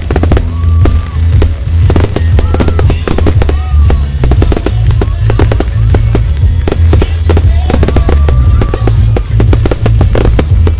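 Aerial fireworks going off in a rapid, dense barrage of bangs and crackles, with heavy low rumble from a tablet microphone overloaded by the blasts. A few short rising-and-falling tones sound over the bangs now and then.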